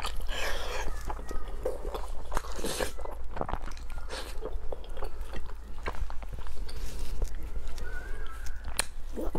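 Close-miked eating sounds: wet chewing, smacking and sucking on soft, sticky pork, with irregular sharp mouth clicks.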